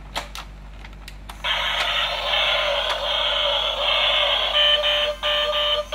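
A battery-powered toy dump truck's built-in electronic sound effects playing through its small, tinny speaker, starting about a second and a half in after a few clicks.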